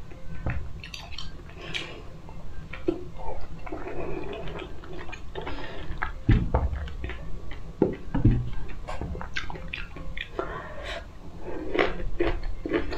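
Close-up chewing and wet mouth sounds of a person eating soft food, with many small clicks. There are two dull low thumps, about six and eight seconds in.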